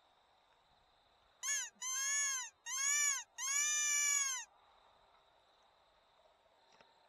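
A hand-blown T2 predator whistle sounded in four quick blasts, each squeal rising then falling in pitch, the last held longest. It mimics a distressed prey animal to pull a running fox up short.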